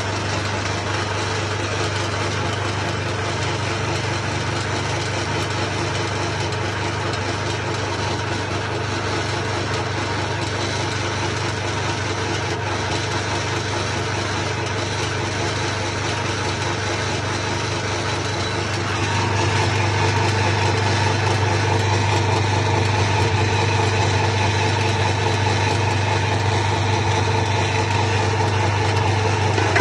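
4 hp flat-die pellet mill running steadily under load, pressing poultry feed mash into pellets: a continuous machine drone with a strong low hum. It gets louder about two-thirds of the way through.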